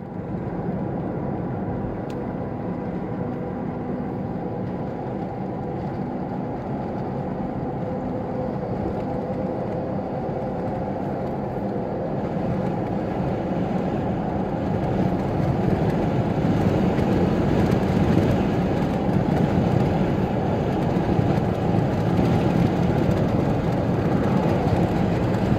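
A car driving on a road: a steady rumble of engine and road noise that grows louder about halfway through as it picks up speed.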